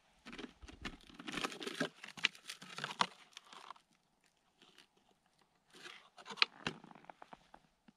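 Crunching and crinkling handling noises from a plastic bottle being tipped and reached into, with snow crunching, in a long spell near the start and a shorter one about six seconds in.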